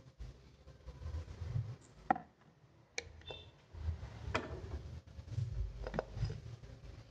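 A nonstick frying pan knocking and clattering on the grate of a gas stove, several separate knocks, as it is set down and swirled with thin crepe batter.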